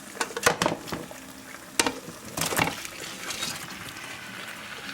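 Fried chicken pieces being stirred into masala cooking in ghee in a pan: a few clanks and scrapes of the spoon against the pan, then a steady sizzle.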